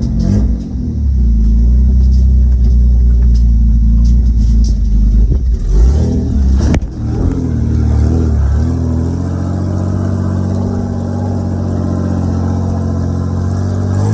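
Straight-piped Nissan Patrol's RB30 3.0-litre straight-six, running open with no exhaust, revving hard with a deep rumble. About halfway there is a sharp knock, and the engine settles to a steadier, slightly wavering run.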